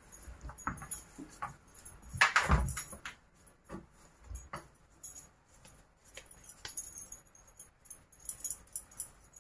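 Bangles on a wrist jingling and clinking as hands shape and handle mashed potato, with scattered small clicks and a louder knock about two seconds in.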